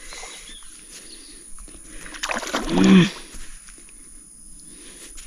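A hooked palometa thrashing and splashing at the water's surface on a fishing line. A man gives one short drawn-out exclamation about three seconds in, the loudest sound here.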